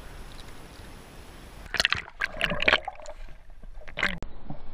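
Water splashing and sloshing around a GoPro as it goes under the pond's surface, with a couple of loud splashes. After that the sound turns muffled and gurgling, as heard from underwater.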